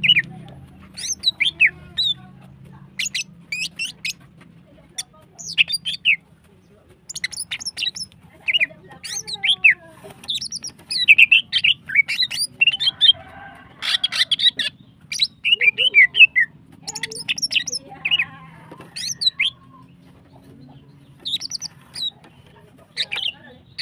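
Female green leafbird (cucak ijo) calling in quick runs of short, sharp chirps and quick up-and-down whistled notes, broken by short pauses and busiest in the middle. A faint steady low hum lies underneath.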